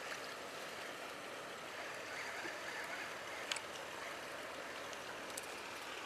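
Faint, steady hiss of harbour water, with a few light clicks about three and a half seconds in and again near the end.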